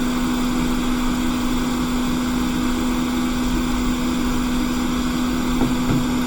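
A small electric blower motor running steadily: a constant hum with an even airy hiss, unchanging throughout.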